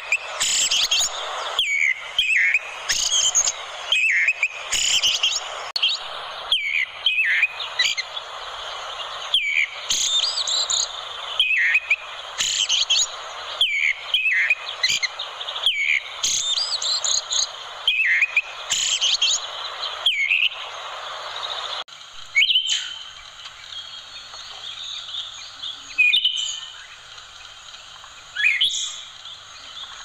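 Eyebrowed thrush (anis kuning) singing: short whistled phrases of falling notes, repeated every second or so over a steady hiss. About two-thirds of the way through the hiss drops away and the phrases come more sparsely.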